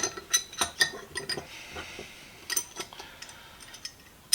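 Steel pliers clinking and clattering against each other and against metal as they are handled: several quick ringing clinks, a few more about two and a half seconds in, and a sharp one at the end.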